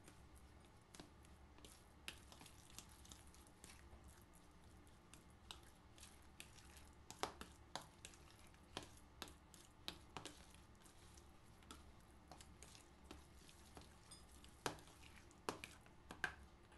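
Faint, irregular clicks and taps of a fork mashing ripe bananas in a mixing bowl, a few slightly louder knocks about seven seconds in and near the end.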